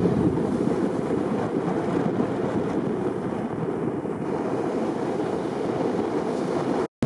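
Choppy North Sea surf breaking, heard as a steady rush of noise with wind buffeting the microphone; the sound cuts out abruptly for a moment near the end.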